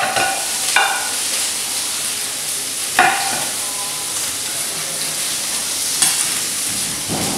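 Steady sizzle of food frying in a pan on a gas range, with several sharp clinks of a spoon against metal bowls that ring briefly, about three seconds apart.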